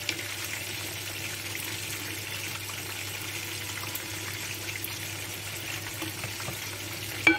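Onion and tomato sauce simmering and sizzling steadily in a clay tajine, stirred with a wooden spoon, with a sharp knock near the end.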